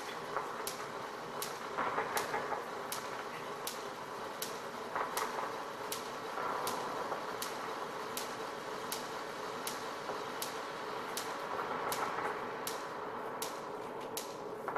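Experimental improvised live music: a steady click about every three-quarters of a second over a rough, creaking, scraping noise texture that swells and fades several times.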